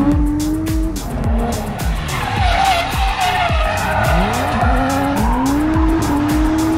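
Drift car engine revving hard, its pitch climbing and dropping again and again, with tyres squealing through the middle of the slide, under music with a steady beat.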